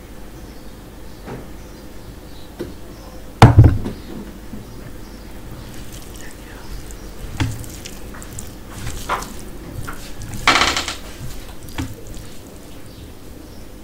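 A bowl is set down with a sharp knock about three and a half seconds in. After that, a hand mixes basmati rice with curry on a steel plate, making soft wet squishing sounds, scattered small clicks against the plate, and a louder wet burst near the end.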